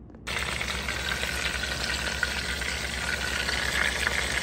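Pork steak sizzling steadily as it fries in hot oil in a pan, starting abruptly a moment in.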